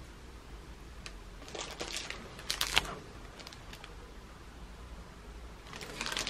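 Plastic sandwich wrapper crinkling in short bursts as the packaged sandwich is picked up and handled, about two seconds in and again near the end.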